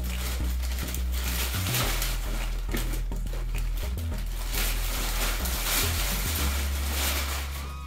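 Background music with a low, stepping bass line, over continual crackling and rustling of plastic packaging being handled.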